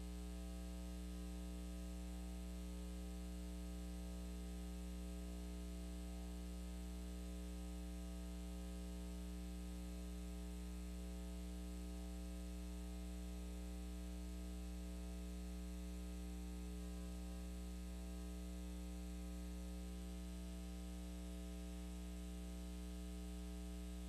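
Steady electrical mains hum, a low drone with buzzing overtones and a faint hiss above it, unchanging throughout.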